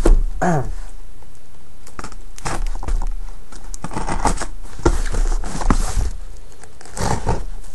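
Cardboard shipping boxes being handled and unpacked on a desk: irregular scraping, rustling and knocks of cardboard, thickest about halfway through and again near the end.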